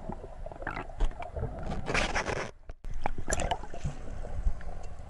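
Underwater sound of a freediver kicking with long fins through the water, with bubbles rushing and scattered clicks; it drops away briefly about halfway through, then the watery noise and clicks go on.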